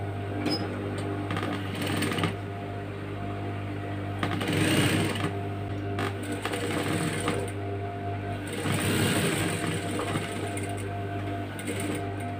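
Industrial sewing machine stitching a dress neckline facing, its motor humming steadily underneath the stitching.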